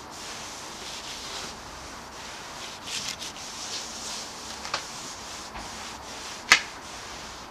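A cloth rubbing across the wet, freshly wet-sanded paint of a car wing, wiping it dry in repeated strokes that hiss. There is a sharp click near the end.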